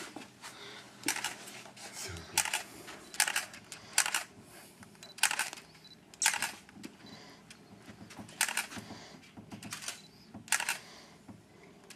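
Camera shutter clicking again and again at irregular intervals, over a dozen short, sharp clicks, some in quick pairs.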